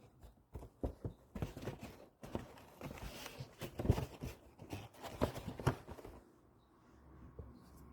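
A new cabin air filter being taken out of its cardboard box: a run of irregular rustles, scrapes and clicks of cardboard and filter handling, dying away about six seconds in.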